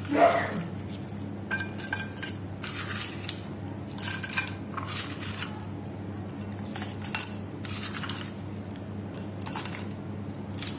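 Ice cubes dropped by hand from a glass bowl into two drinking glasses, clinking and rattling against the glass in a string of short bursts.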